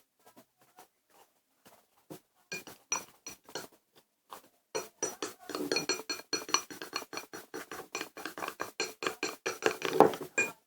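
Spoon stirring slime in a bowl, clinking against the bowl's side: scattered clicks at first, then quick, continuous clinking from about halfway through.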